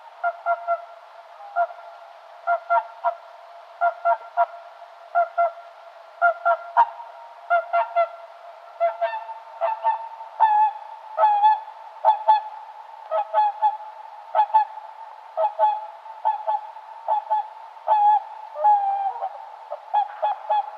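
Swans honking: a long run of short, nasal honks, one every half second to a second and sometimes in quick pairs, as from several birds calling together.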